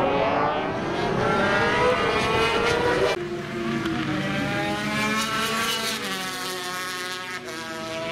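Several road-racing motorcycle engines at high revs, their notes climbing in pitch as the bikes accelerate. About three seconds in the sound cuts abruptly to another pass of bikes, again climbing through the revs.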